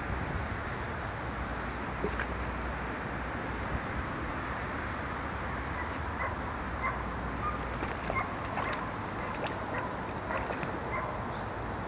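Steady outdoor noise with wind rumbling on the microphone, and scattered short bird chirps in the second half.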